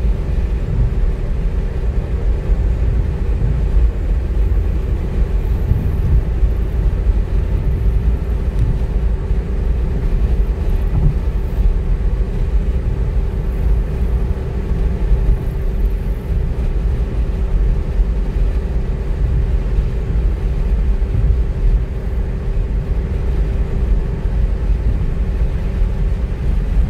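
Cabin noise inside a stock Ford Fiesta cruising at highway speed: a steady low road rumble with a faint, even hum above it.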